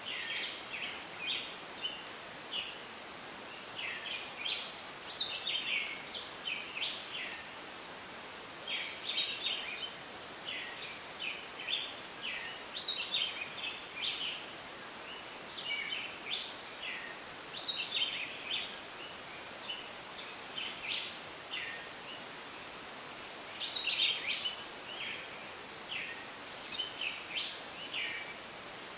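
Puerto Rican rainforest wildlife chorus: many short, overlapping chirps and calls from birds and frogs keep up without a break over a steady background hiss.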